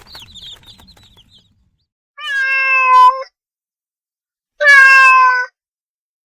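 Domestic cat meowing twice: two long meows of about a second each, a little over a second apart. Faint chicken clucking fades out in the first second or so.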